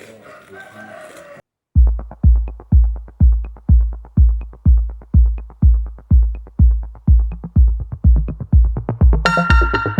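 Electronic music starts after a brief silence: a heavy bass kick beats about twice a second with light ticks over it, and a synth melody joins near the end.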